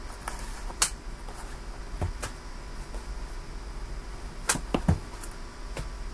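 Trading card boxes and wrappers being handled, with a few sharp taps and swishes: one about a second in, two near two seconds, and a quick cluster of three between four and a half and five seconds.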